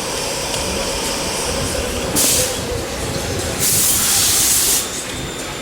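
Pneumatic tool running in two short bursts, each a bright hiss of compressed air, over a steady rumble of shop noise, as a small bracket's fasteners are taken off.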